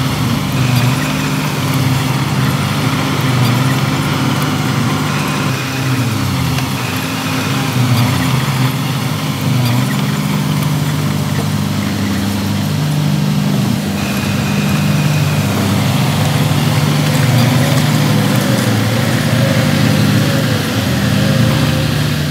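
Diesel engine of earthmoving machinery running at work, steady, its pitch shifting a few times. A faint wavering whine joins it in the last few seconds.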